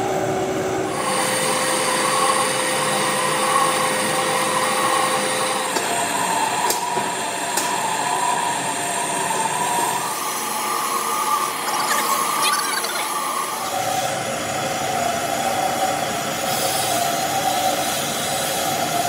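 W&B vertical lathe turning a grey cast iron V-belt pulley: a steady machine noise from the cut, with a shrill whine that changes pitch several times.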